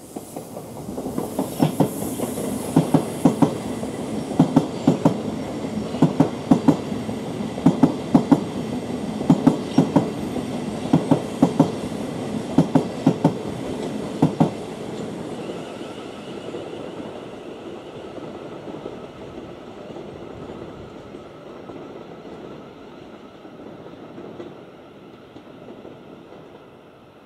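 A Thameslink Class 700 electric multiple unit passing close and running away. Its wheels clack in pairs over the track about every second and a half for the first fourteen seconds, then the train fades to a dwindling rumble.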